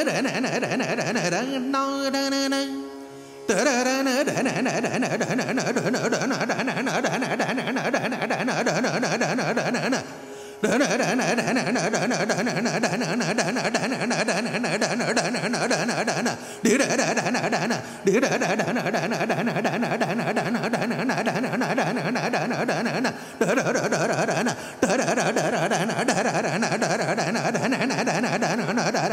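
Male dhrupad singer performing an alaap in Raga Kamboji over a drone of two tanpuras. He opens with held, wavering notes, and from about four seconds in sings rapid, pulsed syllables, broken by a few brief pauses.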